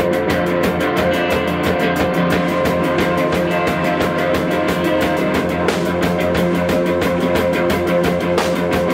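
Live instrumental krautrock / no-wave played by a drum kit and electric guitar: steady, driving drumming with rapid, even cymbal strokes over sustained, droning guitar notes.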